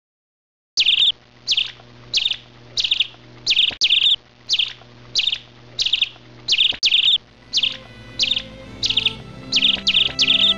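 A bird chirping, the same short high call repeated at a steady pace, roughly every two-thirds of a second, starting about a second in. Soft music comes in beneath it and grows louder near the end.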